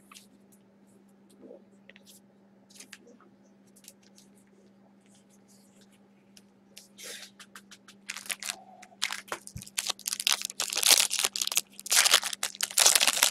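Faint handling clicks, then from about eight seconds in a loud, dense crackling as a trading card pack's wrapper is torn open and crumpled.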